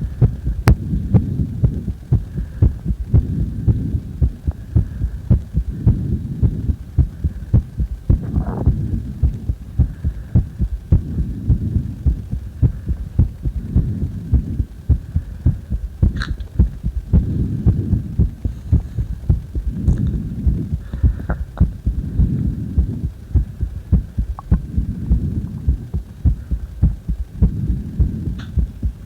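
A human heartbeat: a quick, even run of soft thumps over a low rumble that swells and fades every few seconds.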